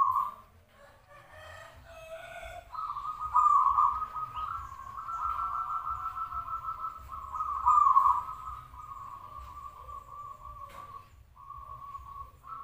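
Zebra dove (perkutut) cooing in a long rolling trill held near one pitch and slowly dropping, breaking off briefly about seven and again about eleven seconds in.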